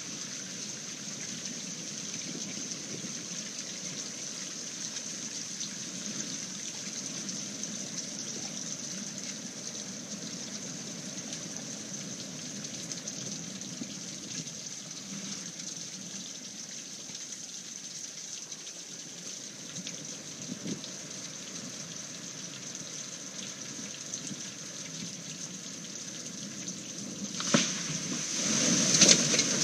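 Steady rush of water in a storm, with a sharp knock a little before the end and a brief louder burst just after it.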